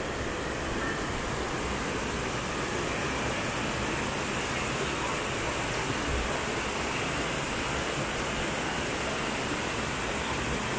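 Rocky mountain stream rushing over stones and small cascades: a steady, even hiss of running water.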